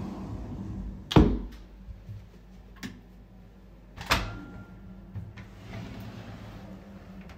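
Doors being shut and opened: a loud door thud about a second in, a couple of light latch clicks, a second bang about four seconds in, then a soft rustling sweep as the shower-room door is pushed open.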